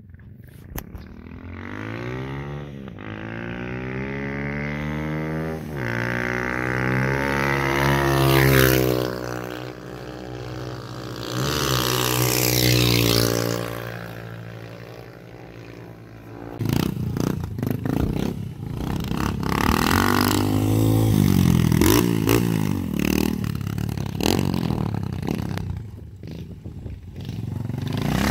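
Motorcycle engine revving and accelerating, its pitch climbing and dropping back at each gear change, twice in the first few seconds. From about the middle on, the engine is revved up and down in short uneven bursts with some clattering.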